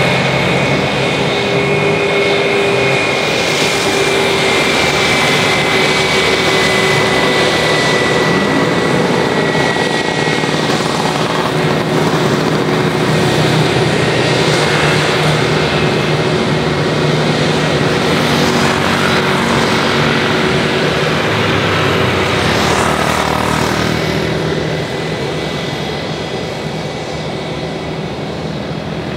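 Airbus A320's jet engines, an airliner landing, running loud and steady with a high whine that slowly falls in pitch; the sound eases off near the end.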